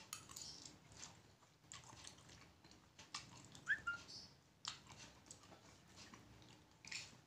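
A person eating instant fried noodles at close range: faint chewing and slurping with wet mouth clicks and smacks, and a short high squeak of a slurp a little past halfway.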